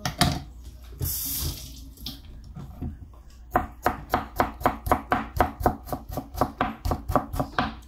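Kitchen knife chopping watermelon rind into thin slices on a plastic cutting board: quick, even strokes about five a second, starting about three and a half seconds in. A brief hiss comes about a second in.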